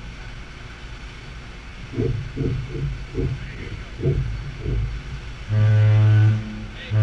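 Deep ship's whistle sounding short blasts, the danger signal for an emergency breakaway during underway replenishment. One blast of just under a second comes about five and a half seconds in, and the next starts at the very end. Before that, irregular low rumbles of wind buffeting the microphone.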